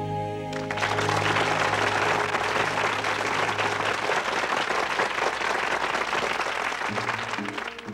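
Audience applauding, starting about half a second in as the choir's last held chord of a gospel song fades out beneath it. Near the end the applause thins as a rhythmic instrumental introduction to the next song begins.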